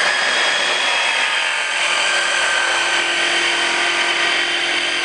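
Electric hand blender with a chopper bowl attachment running steadily with a constant whine. It is blending ground hazelnut paste with cocoa and sweetener into a uniform chocolate spread.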